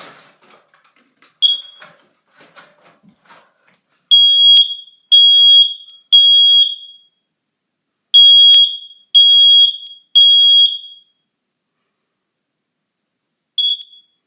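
Kidde 10SDR smoke alarm sounding its test: a short high chirp, then two rounds of three loud half-second beeps on one high piercing tone, the standard three-beep fire pattern, and a final short chirp near the end. Faint handling noise comes before the beeping.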